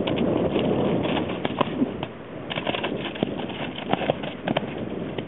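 Hooves of two horses, a Percheron cross and a Tennessee Walking Horse x Quarter Horse cross, thudding and scuffing on soft turf as they rear and buck in rough play. A dense rumble of movement in the first two seconds gives way to scattered sharp hoof strikes.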